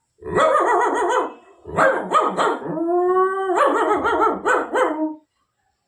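Recorded dog barking in quick runs, with one drawn-out howl about halfway through, played as a dog sound effect.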